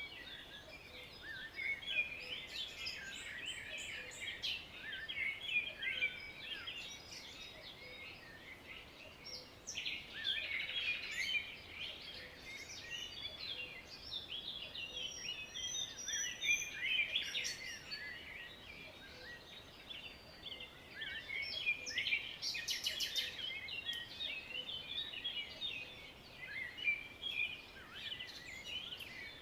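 Chorus of many small songbirds chirping and singing over one another without pause, with short quick notes and trills overlapping.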